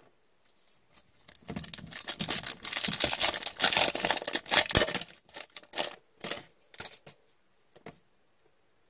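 Foil wrapper of a trading-card pack being torn open and crinkled, loudest from about a second and a half to five seconds in. A few short rustles of the cards being handled follow.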